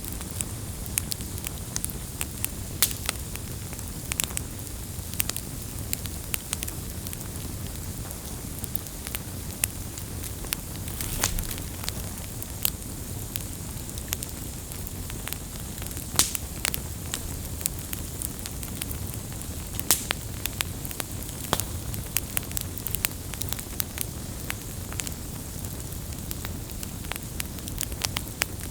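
Wood fire burning with irregular crackles and sharp pops over a steady low rumble of the flames, a few louder pops standing out.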